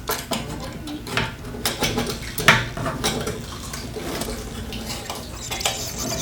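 Irregular metallic clinks and knocks of hand tools and metal parts being handled, the loudest about two and a half seconds in.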